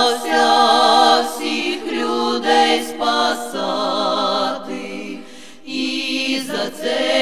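Women's folk choir singing a Ukrainian Passion song a cappella, holding long notes with a wavering vibrato. The voices thin out for a short breath about five seconds in, then come back together.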